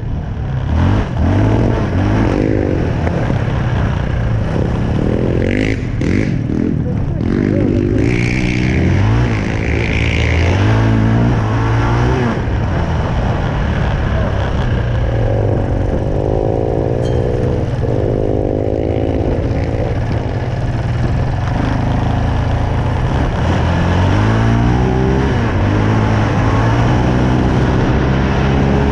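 Yamaha Raptor 700 quad's single-cylinder four-stroke engine running under way, its pitch rising and falling over and over as the throttle opens and closes and it shifts gears.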